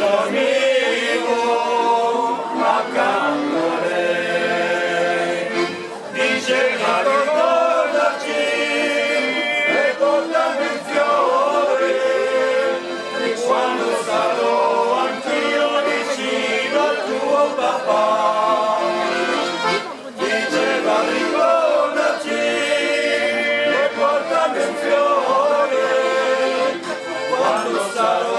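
A small group of men singing a folk song together, with a fiddle playing along.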